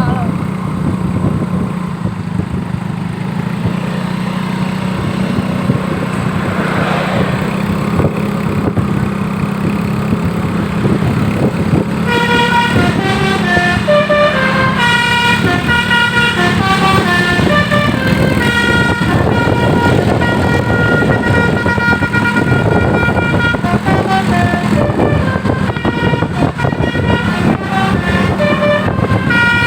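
Tour bus's telolet basuri horn playing a quick melody of stepped notes, starting about twelve seconds in, over the steady hum of the bus's engine.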